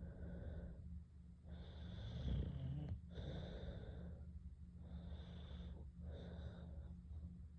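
A girl snoring lightly: wheezy, airy breaths in and out, about five in all, over a steady low hum.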